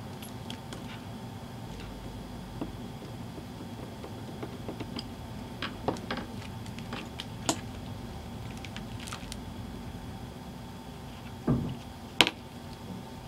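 Light handling noises of a stitched leather strap with a metal snap fastener on a cutting mat: scattered small clicks and taps, then a dull thump near the end followed at once by one sharp click, over a steady hum.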